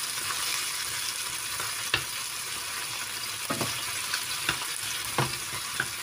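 Peeled shrimp and garlic sizzling in hot oil in a frying pan while being stirred with a wooden spatula: a steady sizzle with about five sharp clicks scattered through it.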